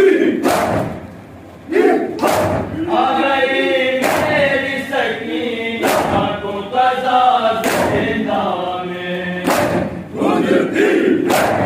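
Men chanting a nauha (Shia lament) together, with the whole crowd's open-handed chest-beating (matam) landing in unison as a loud slap about every two seconds.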